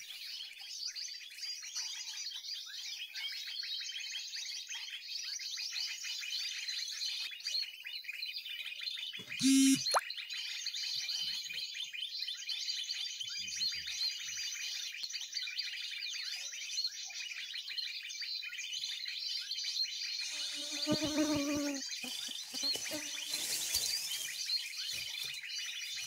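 Recorded bird song played through a phone's speaker as a lure for lime-stick bird trapping: a dense, continuous run of high chirping calls. A brief louder noise comes about nine and a half seconds in, and a lower-pitched call around twenty-one seconds.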